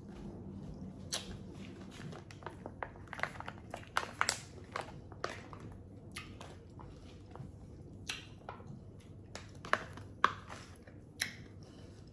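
A person chewing Kool-Aid-brined pickle slices close to the microphone: irregular crunching clicks and crackles, bunched in places, with short pauses between.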